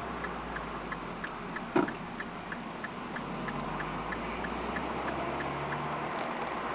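Car's turn-signal indicator clicking evenly, about three clicks a second, over a low steady engine idle; one sharp knock sounds just under two seconds in, and the clicking stops near the end.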